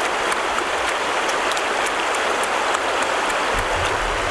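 Fast-flowing river rushing over rapids: a steady wash of water noise, with small faint clicks scattered through it.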